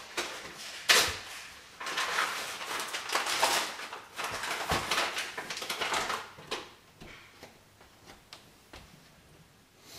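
Kitchen clatter from things being handled at a counter: a sharp knock about a second in, rustling and clinking for the next few seconds, then only a few light clicks.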